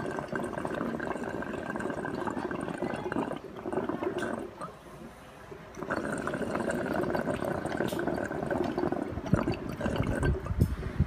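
Water bubbling through a glass recycler bong's honeycomb percolator as air is drawn through it, stopping for a moment about halfway and then starting again. A few low bumps come near the end.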